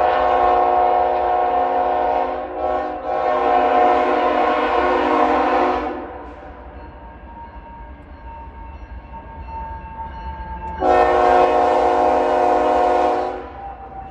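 Air horn of a BNSF GE ES44C4 diesel-electric locomotive sounded as the train approaches: a long chord blast with a brief break about two and a half seconds in, then, after a pause of about five seconds, another long blast. Between the blasts the train runs with a faint whine that falls slowly in pitch.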